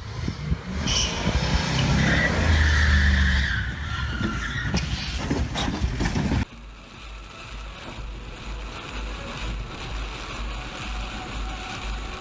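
A pickup truck's engine revs hard while its rear tires spin and scrub across grass and dirt, with a squeal partway through. About six seconds in it cuts off abruptly to steady rain and road noise inside a car, with a low, regular thumping.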